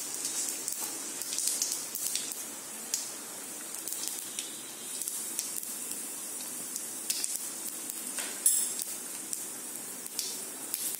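Hot oil sizzling in an aluminium kadai as mustard seeds and panch phoron spices fry, with scattered crackles and pops. A single sharp click, louder than the rest, about eight and a half seconds in.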